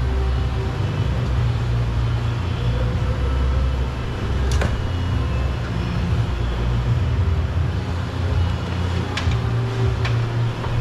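A steady low hum with a few sharp clicks, one about four and a half seconds in and two near the end.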